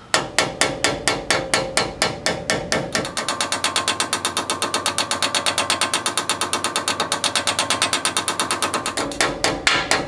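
Hammer lightly tapping a new rear axle seal into the axle tube, worked around the seal's edge. The taps come about four a second, then quicken to a rapid run from about three seconds in, slowing again near the end.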